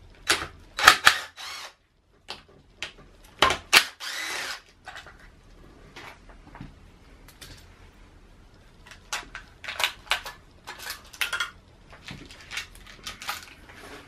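Cordless DeWalt power tool run in short spells, about a second in and again near four seconds, undoing the E10 clamp bolts on a diesel fuel rail. A scatter of light metallic clicks from tools and loosened parts follows in the later seconds.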